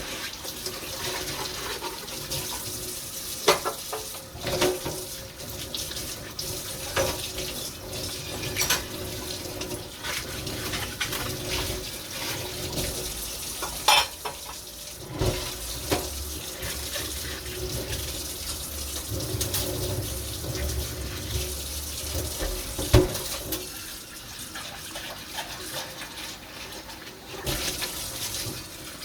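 Tap water running into a kitchen sink during hand dishwashing, with dishes and pans clinking and knocking now and then; the sharpest knocks come about 3.5, 14 and 23 seconds in.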